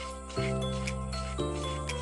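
Background music: a light, tinkly instrumental with bell-like notes over sustained bass chords that change about every second.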